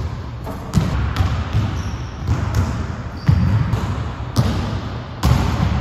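Basketballs bouncing on a hardwood gym floor: about seven sharp, irregularly spaced bounces of dribbling.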